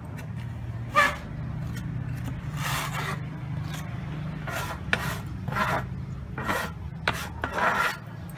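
Masonry hand tools scraping and rubbing on autoclaved aerated concrete blocks and their mortar: about eight irregular scrapes, the sharpest about a second in and another near the end. A steady low hum runs underneath.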